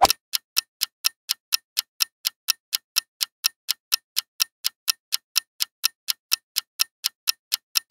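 Quiz countdown-timer sound effect: a clock ticking steadily, about four ticks a second.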